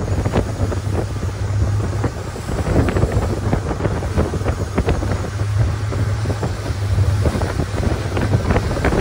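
Longtail boat under way, its engine running with a steady low drone, and wind buffeting the microphone in uneven gusts.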